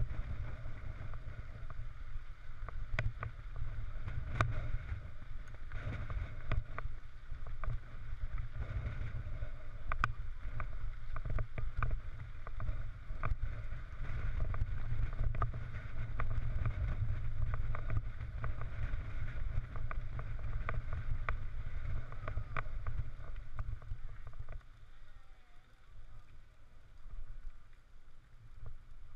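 Wind buffeting a helmet-mounted camera's microphone over the rumble and rattle of a mountain bike rolling on a gravel track, with scattered clicks and knocks. It turns quieter for the last few seconds.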